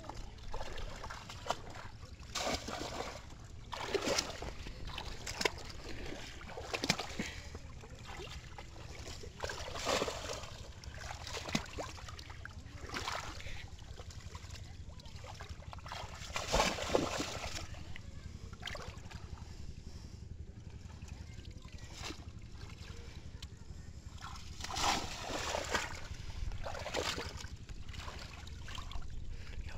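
Shallow floodwater splashing and sloshing as a bamboo polo fish trap is plunged down and legs wade through water weeds, in irregular splashes every second or two over a steady low rumble.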